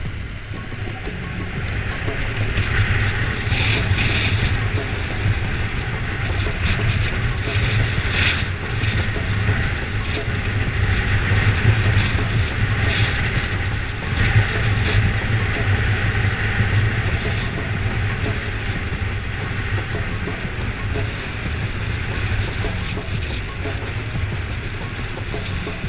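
Kawasaki Versys 650 parallel-twin engine running steadily at road speed, with wind noise over the microphone.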